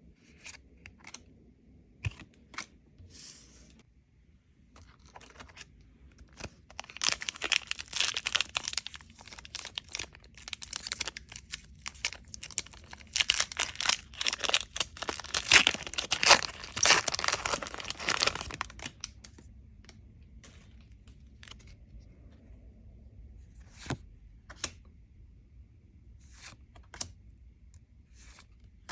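A foil Lorcana booster pack wrapper being torn open and crinkled: a dense run of tearing and crackling in the middle, with scattered light clicks and rustles of handling before and after.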